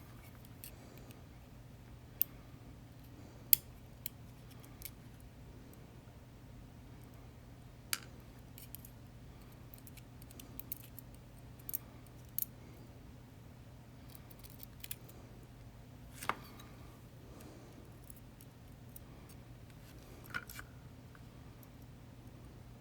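Irregular sharp metallic clicks and taps of small lock parts: pin tumblers and springs being handled and tapped out of a Yale 2000 Plus lock cylinder. The clicks come a few seconds apart over a low steady hum, and the loudest is about three seconds in.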